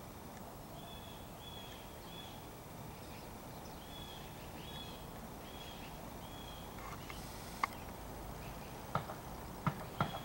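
A crow's beak knocking sharply against a birdbath dish several times in the last few seconds. Before that, a small bird gives a run of short, high chirps in the background, about one every half second to second.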